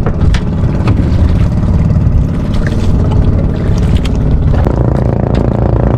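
Engine of a motorized outrigger fishing boat running steadily under way, a loud low drone.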